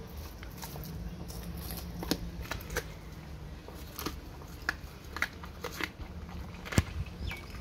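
Dog biting and mouthing a whole raw gilthead sea bream: irregular clicks and snaps of its teeth and mouth on the fish, one sharper click near the end.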